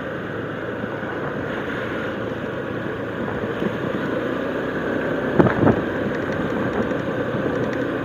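A motorcycle running at low road speed with wind noise, heard from the rider's handlebar camera. A brief, louder pitched sound cuts through about five and a half seconds in.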